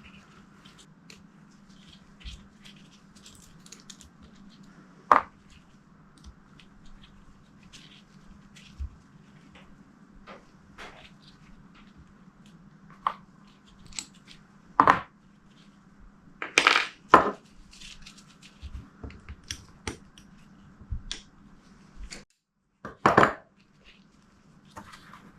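Scattered clinks and knocks of small metal power-valve parts from a two-stroke cylinder being handled and set down on a workbench. They sound over a steady low hum that cuts out near the end.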